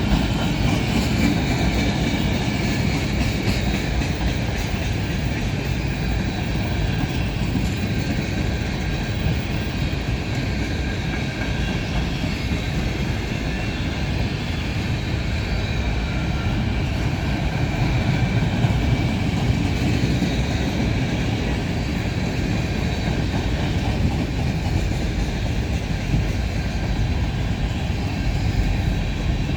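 CSX freight train rolling past: a steady rumble of wheels on the rails that runs without a break.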